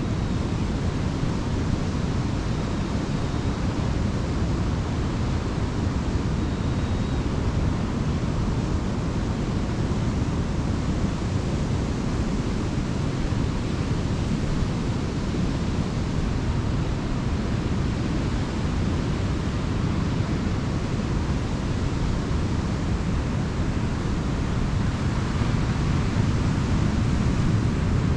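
Ocean surf on a beach, a steady wash of breaking waves that swells a little near the end.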